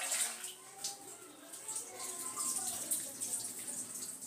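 Tap water running and splashing in a kitchen sink as vinegar-soaked onions are rinsed under it, an uneven hiss with irregular splashes.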